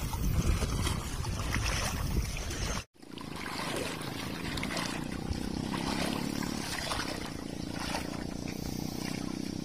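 Low wind and water noise that cuts off suddenly about three seconds in, followed by a small engine running steadily.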